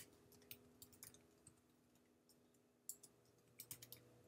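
Faint computer keyboard typing: irregular single keystroke clicks, pausing for about a second and a half in the middle, then a quick run of keystrokes near the end.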